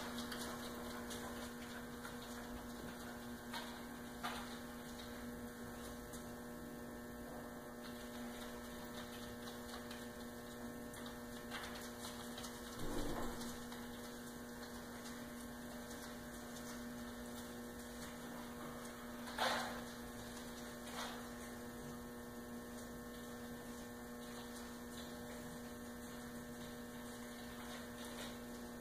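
Steady electrical mains hum with a few soft, brief knocks, the loudest about two-thirds of the way through.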